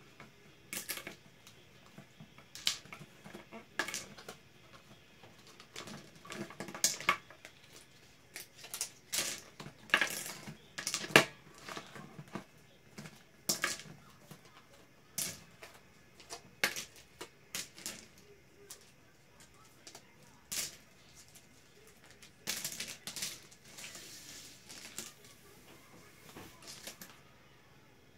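Interlocking plastic building-block panels being pulled apart and dropped onto a tabletop: irregular sharp plastic clicks and clatters, some in quick clusters.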